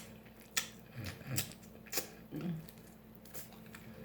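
Mouth sounds of close-miked eating: a handful of sharp, separate lip smacks and chewing clicks, with a short low "mm" of enjoyment about two and a half seconds in.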